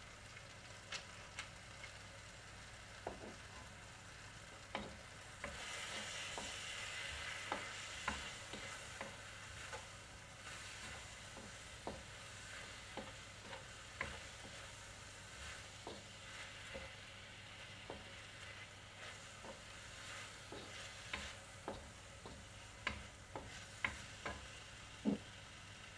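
Diced chicken and bacon sizzling in a wok while a wooden spoon stirs and knocks against the pan in frequent short clicks. The sizzle grows louder for a few seconds about five seconds in.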